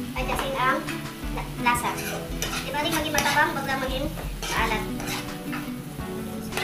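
Spatula stirring and scraping sautéed kangkong with sardines in a nonstick frying pan, the oil sizzling, over background music.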